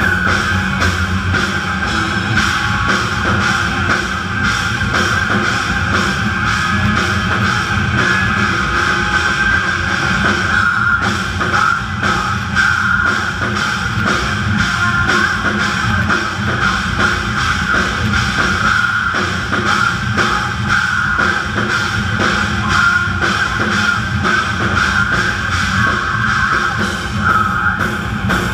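Heavy metal band playing live: a drum kit with fast, driving beats and cymbals, electric guitar and keyboards, continuous and loud.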